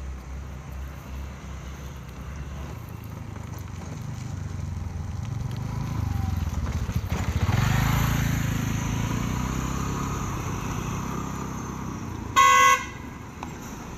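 A motor vehicle going past: its low engine rumble swells to a peak about halfway through, then fades. Near the end comes one short horn toot, the loudest sound.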